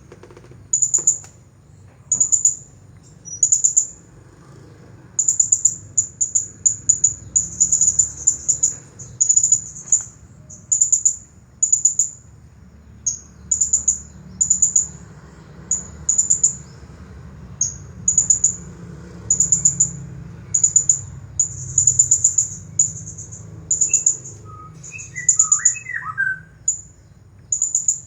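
Blue-crowned hanging parrot (serindit) calling almost nonstop. It gives very high, thin chirps in quick clustered runs, one run every second or so.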